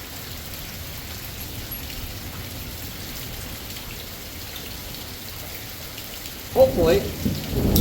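Steady heavy rain pouring down during a thunderstorm. Near the end a louder, shorter sound breaks in over it.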